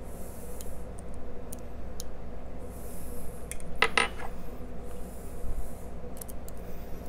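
Light metal clicks of steel lock picks and a tension wrench working in the keyway of a Codkey Locksys L52 cylinder. About four seconds in there is a short ringing metallic clatter as one pick is swapped for another.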